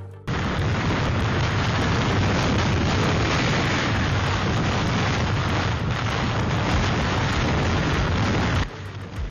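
Hurricane-force wind buffeting the microphone: a loud, steady rush of noise, heavy in the low end, that starts abruptly just after the beginning and cuts off suddenly near the end.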